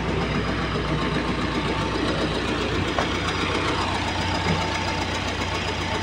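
Diesel engine of a John Deere 450J crawler dozer idling steadily, with a faint steady whine above the low engine hum.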